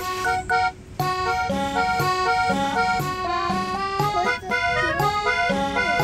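Background music: a lively accordion tune over a steady, repeating bass beat, with a short break just under a second in.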